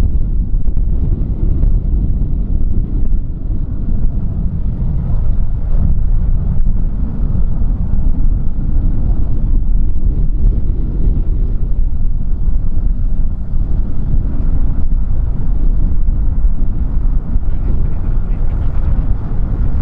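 Strong wind buffeting the microphone: a loud, steady low rumble that swells and dips irregularly.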